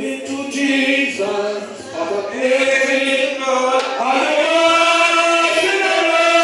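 A man sings a spiritual hymn into a microphone, amplified through the church PA, in long held, chant-like notes. Other voices seem to join in.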